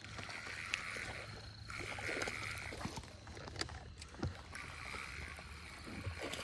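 Spinning reel being cranked to retrieve line, a soft whirring in two spells with a gap in the middle, with a few light clicks and knocks.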